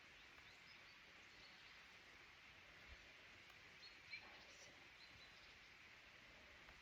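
Near silence: faint forest ambience with a few short, high bird chirps scattered through.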